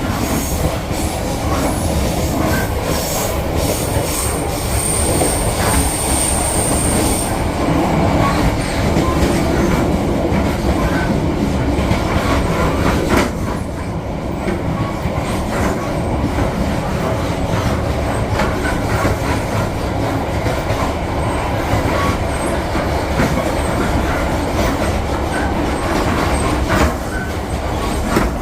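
Passenger train running on the rails: a steady rumble and rattle of wheels on track with scattered knocks, and a thin high squeal for a few seconds about five seconds in.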